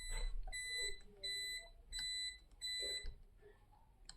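An electronic beeper sounding five short, high beeps at a steady pitch, about two a second, stopping about three seconds in. A single click is heard near the end.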